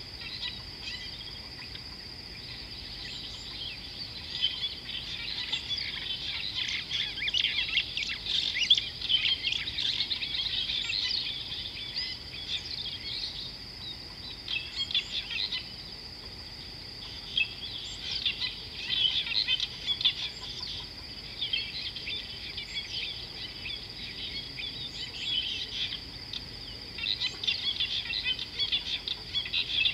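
Wild birds chirping and calling in quick bursts that come and go, over a constant high-pitched whine.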